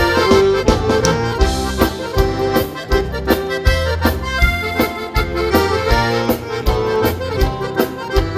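Button accordion (gaita) playing the melody of an upbeat gaúcho dance tune, with bass and a steady drum beat.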